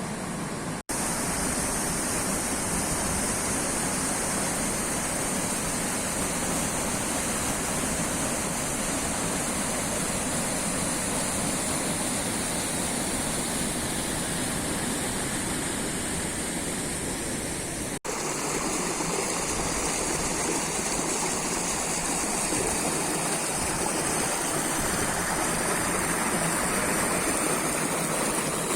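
Steady rush of water falling and running along the Guadalix river at a waterfall, an even noise with no let-up, broken for an instant twice by cuts: about a second in and again past the middle.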